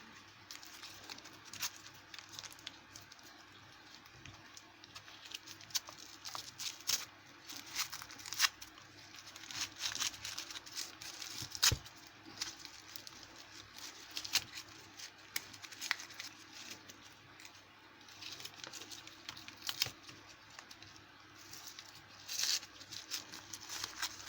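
Packing paper being crumpled and torn off while unwrapping locks, in irregular rustles with scattered small clicks. A sharp knock about halfway through is the loudest sound.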